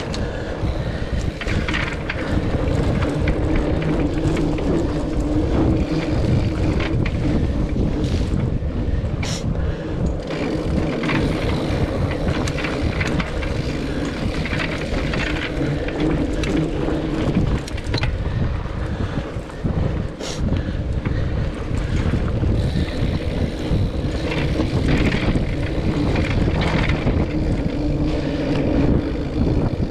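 Wind rushing over a GoPro action camera's microphone while a mountain bike rolls along a dirt forest trail: a steady rumble of tyres on the track, with scattered knocks and rattles of the bike over bumps.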